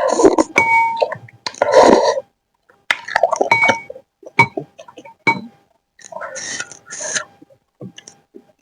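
Close-up eating sounds: several short bouts of chewing and slurping, with sharp clicks and a few ringing clinks of a utensil against the dish.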